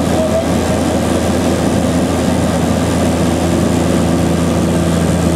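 Propeller aircraft's engines running steadily, heard from inside the cabin: an even, unchanging hum with a few steady low tones in it.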